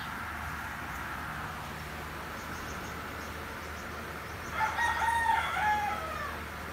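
A rooster crows once, a single pitched call of under two seconds that starts about four and a half seconds in and falls away at the end. A steady low hum runs underneath.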